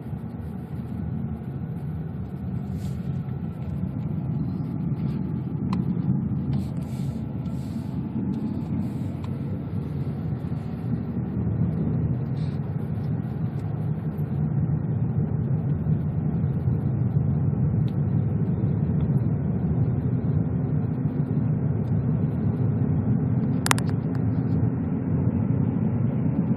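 Steady road noise of a car heard from inside the cabin while it drives along a paved road: a low engine and tyre rumble that grows a little louder in the second half. A single sharp click comes near the end.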